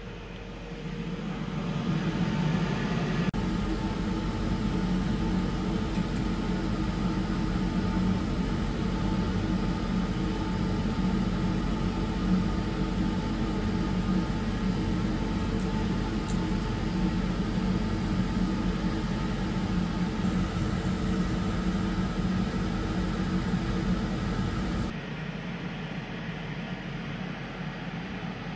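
Steady machine hum from a Hurco VM5i CNC machining centre: a low drone with a few steady tones over it, which drops away suddenly near the end.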